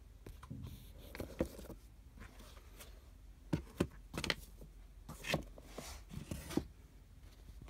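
Handling noise: soft rubbing and scattered light knocks and clicks as hands turn a leather sneaker over a cardboard shoebox, with fingers brushing close to the microphone.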